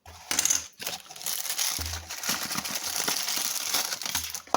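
Plastic packaging crinkling and rustling as it is handled and unwrapped, a steady crackle with small clicks throughout.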